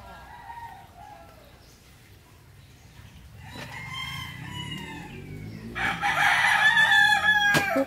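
Rooster crowing: a fainter crow about halfway through, then a loud, long crow about six seconds in.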